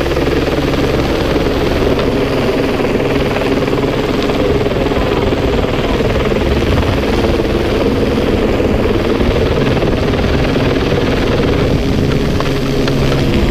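AS350 light helicopter running steadily, a continuous turbine-and-rotor noise.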